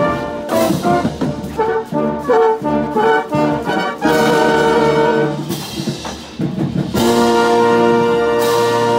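Marching band brass playing a show, picked up close to a mellophone: short, punchy notes in the first few seconds, then long held chords.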